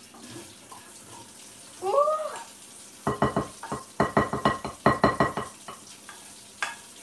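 A wooden spatula scraping and tapping fried onions out of a frying pan into a glass mixing bowl: a fast run of taps from about three seconds in, each with a slight ring. A short wavering squeak about two seconds in.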